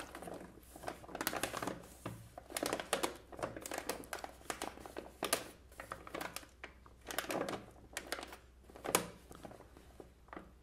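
Sealed plastic snack bag of popcorn crinkling as it is turned and straightened in the hands, in irregular crackles.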